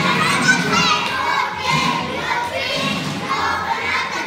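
A crowd of children shouting and cheering, many high voices at once.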